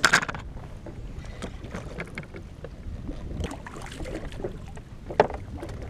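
Sea water lapping and sloshing against the hull of a drifting jet ski. A sharp knock comes right at the start and another about five seconds in.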